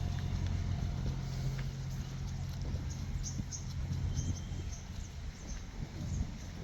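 Outdoor ambience: a low motor hum that fades over the first few seconds, with scattered short, high chirps of small birds.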